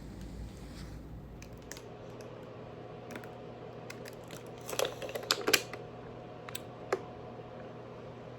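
Scattered light clicks and taps, with a quick cluster of louder ones about five seconds in, over a faint steady hum.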